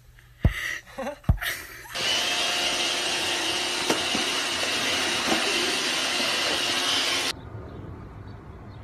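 Robot vacuum cleaner running: a loud, steady hiss with a faint high whine that starts about two seconds in and cuts off suddenly about five seconds later. Before it come a couple of sharp knocks.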